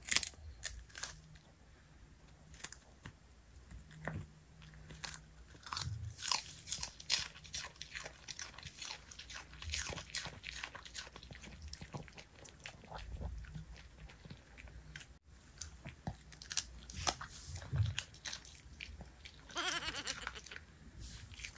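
A Bichon Frise biting and crunching pieces of raw napa cabbage, a run of crisp irregular crunches and chewing. A brief pitched sound comes near the end.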